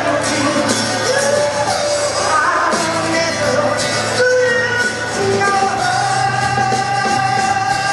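Rock and roll music with a singer, with held sung notes in the second half.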